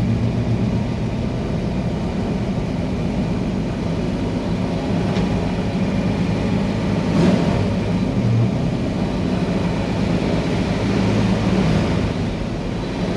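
1963 Corvette's V8 engine running while the car is driven, a steady low note that swells and eases as the throttle changes.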